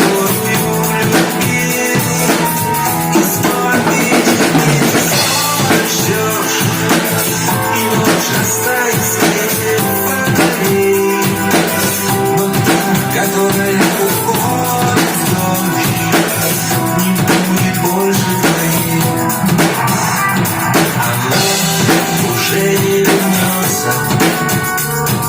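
Instrumental break of a pop-rock song: a steady drum-kit beat with snare and bass drum under guitar and keyboard parts.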